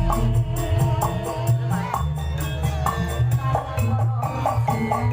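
Live jaranan ensemble music: drums and percussion strikes over a deep bass, with a melody of held, repeating notes.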